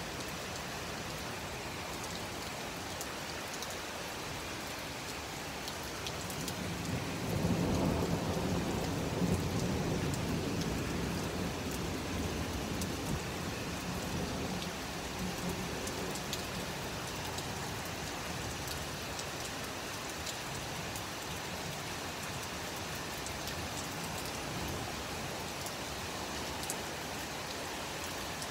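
Heavy rain falling steadily, with a long roll of thunder that builds about six seconds in, is loudest a couple of seconds later, and rumbles away over several seconds.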